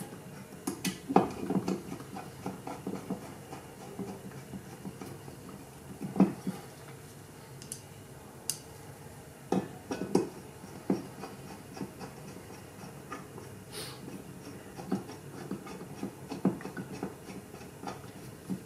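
Irregular small clicks and scrapes of a hand screwdriver driving screws through a circuit card into the heat sinks of a xenon bulb assembly, with a few sharper knocks among them.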